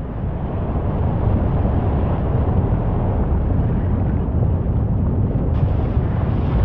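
Loud, steady low rumble with wind buffeting the microphone; the hiss grows a little brighter about five and a half seconds in.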